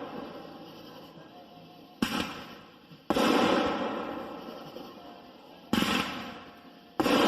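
Consumer fireworks cake (Cutting Edge 'Jaws', 9 shots, 2-inch tubes) firing shells. Twice, a sharp launch thump is followed about a second later by the loud break of the shell in the air, and each break fades out over a couple of seconds.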